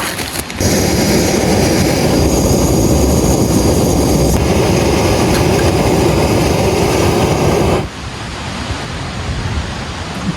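Backpacking stove burner running at a steady, loud hiss, most likely heating water for a dehydrated meal. It starts suddenly about half a second in and cuts off suddenly near the end.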